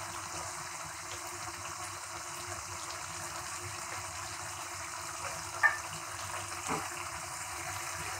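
Prawn and potato gravy simmering in a kadai, a steady bubbling sizzle. A sharp tick about five and a half seconds in, and a softer one about a second later.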